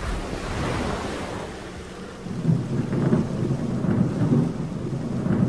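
Thunderstorm: a steady hiss of rain, with a low rolling thunder rumble that swells about two seconds in and keeps rumbling.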